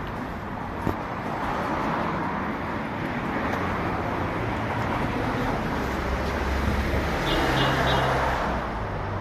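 Street traffic noise, with a motor vehicle passing close by and loudest about seven to eight seconds in.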